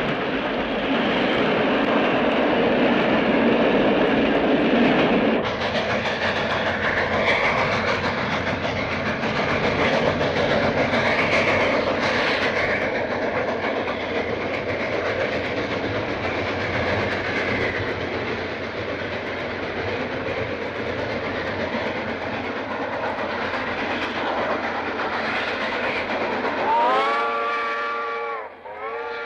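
A locomotive running past with its wheels clattering on the rails, the sound slowly fading as it recedes. Near the end the whistle blows twice: one blast, a brief break, then a second blast.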